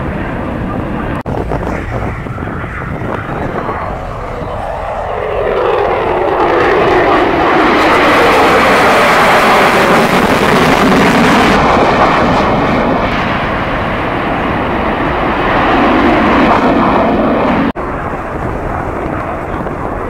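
Lockheed Martin F-22 Raptor's twin F119 turbofan engines passing: the jet noise builds over a few seconds, is loudest and most hissing around the middle as the jet goes by, then eases off. Two brief dropouts, about a second in and near the end.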